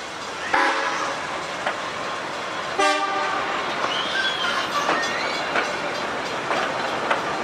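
Vintage passenger carriages rolling past steadily, their wheels clacking over rail joints, with brief high squeals from the wheels. The loudest squeal comes about three seconds in.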